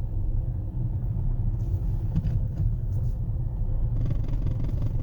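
Toyota 2AD-FHV four-cylinder common-rail diesel engine running at low revs, a steady low rumble; the injector knock being listened for is not audible at this moment.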